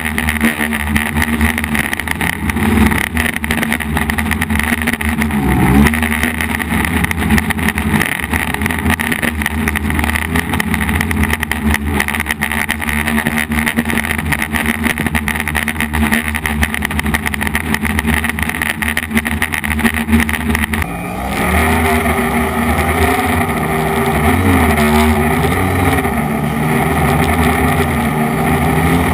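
F450 quadcopter's motors and propellers buzzing steadily in flight, the pitch wavering up and down as the throttle changes. About two-thirds of the way through, the sound shifts suddenly and grows louder.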